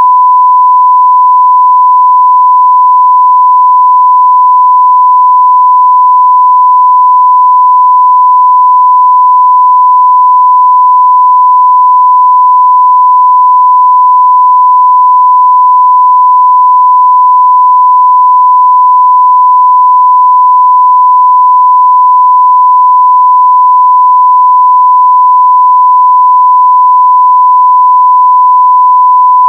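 A pure 1 kHz sine-wave test tone at full level (0 dB), held perfectly steady.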